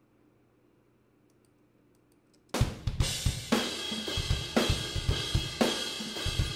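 Near silence, then about two and a half seconds in a recorded pop-punk drum kit starts playing back: kick, snare, hi-hat and cymbals in a steady beat. These are the raw acoustic drum tracks alone, with the sample-reinforced kicks and toms muted.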